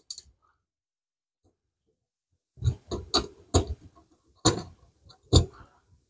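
Ceiling fan mounting plate knocking and clicking against the ceiling electrical box as it is lined up and fitted by hand: about five sharp knocks, starting about two and a half seconds in.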